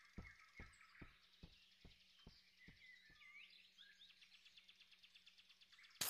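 Very quiet forest ambience of birds chirping, with soft, evenly spaced ticks about twice a second that fade out about halfway through.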